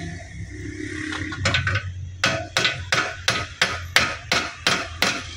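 Claw hammer striking an aluminium bracket clamped in a steel bench vise, bending it. A few light taps come first, then steady blows about three a second from around two seconds in, each a sharp metallic knock with a short ring.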